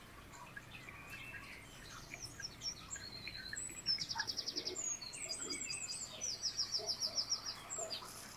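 Songbirds chirping, with high calls and fast trills of evenly repeated notes that grow busier after about four seconds.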